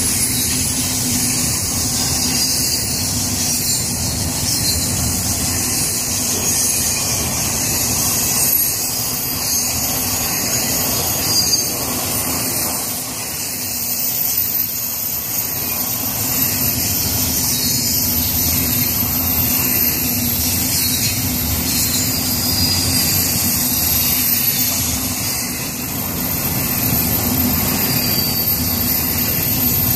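Double-stack intermodal freight cars rolling past close by: a steady rumble of steel wheels on rail, with thin high-pitched wheel squeals coming and going as the train takes the curve.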